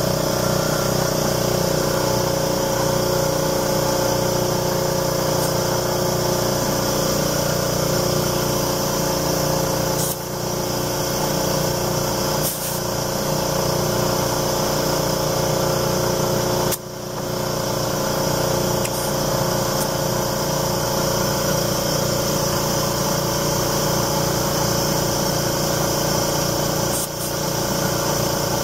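Air compressor running steadily as it inflates a car tire through a hose on the valve stem. The tire has just been repaired with a screw and silicone. The sound dips briefly a few times.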